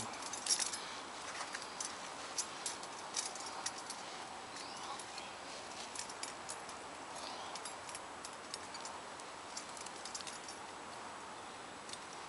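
Light metallic clicks, ticks and scrapes of coat-hanger wire against a folding metal vegetable steamer as the wire is worked through its holes, scattered irregularly over a steady hiss.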